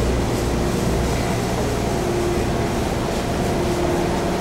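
Ride noise inside a car of an Osaka Subway 10 Series chopper-controlled electric train running underground: a steady rumble with a faint hum over it.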